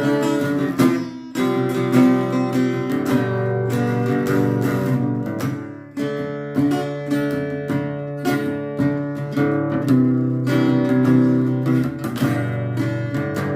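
Acoustic guitar played as a jam, strummed chords with repeated strokes and a few brief pauses between phrases.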